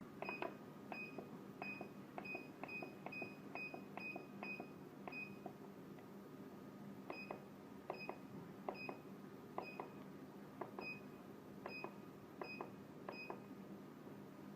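Buttons pressed one after another on a digital alarm clock, each press a click with a short high beep. About ten presses come at an uneven pace, then a pause of about two seconds, then about nine more, over a faint steady hum.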